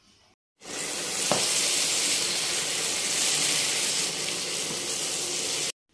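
Diced potatoes and boiled liver sizzling steadily in hot spiced oil in a frying pan while a spatula stirs them; the potatoes are being sautéed down before water goes in. The sizzle starts abruptly about half a second in and cuts off just before the end.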